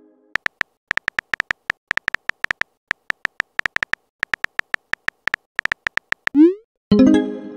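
Texting app's typing sound effect: a quick, uneven run of short, high electronic ticks, one per letter typed. About six seconds in, a short rising swoop is followed by a ringing chime as the message is sent.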